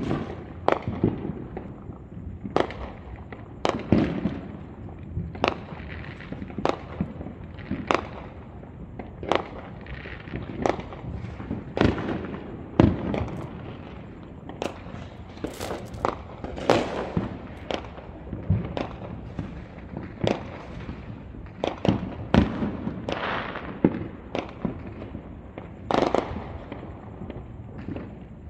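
Fireworks going off: a steady run of irregular bangs and pops, about one or two a second, many trailing off briefly after each bang.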